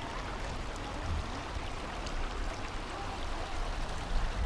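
Shallow rocky creek running over stones: a steady rush of water, with a couple of short low thumps about a second in and near the end.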